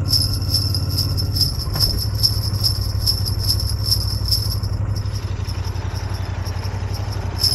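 Sleigh bells jingling in a quick, even rhythm over a low steady drone. The bells drop out about five seconds in and come back near the end.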